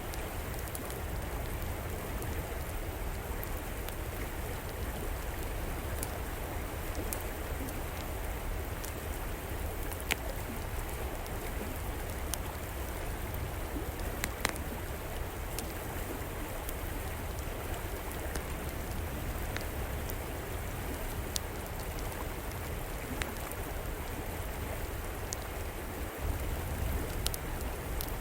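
Steady rush of flowing river water, with the sharp crackles and pops of an outdoor fireplace fire breaking through now and then.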